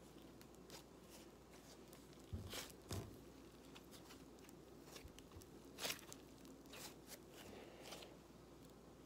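Faint sticky crackles and clicks of yellow slime being stretched and squeezed in the hands, with a few louder crackles near the middle.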